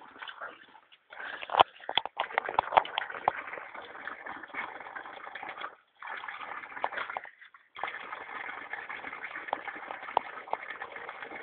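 Water splashing and sloshing in a bucket as small dogs play in it, with irregular splashes and knocks. The sound briefly cuts out twice near the middle.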